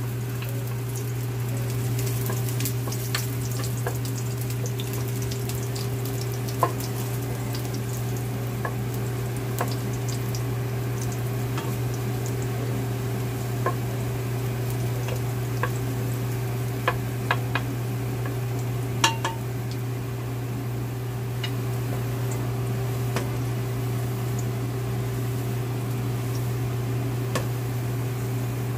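Sliced garlic sizzling in hot cooking oil in a pot, stirred with a wooden spatula that clicks against the pan now and then, over the steady hum of a kitchen fan.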